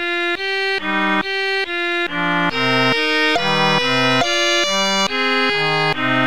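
Background music: sustained instrumental notes and chords over a bass line, the notes changing two or three times a second.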